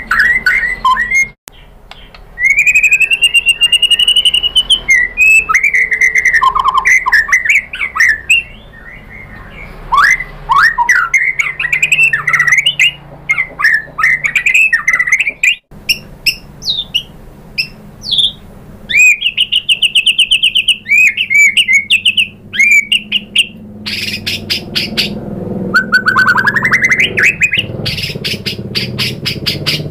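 White-rumped shama singing loudly in a long, varied song of whistled slurs, rising notes and fast chattering trills, broken by short pauses. The song is full of isian, the phrases a shama copies from other birds.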